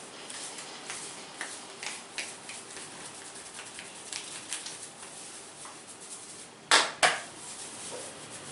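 Hands working an oiled head in a massage: a string of light, irregular pats and taps, then two loud sharp smacks in quick succession about a second and a half before the end.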